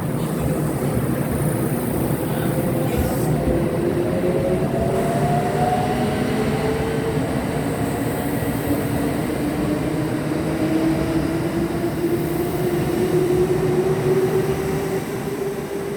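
Kintetsu electric train pulling away: the traction motors' whine rises steadily in pitch as it accelerates, over a steady rumble of running gear.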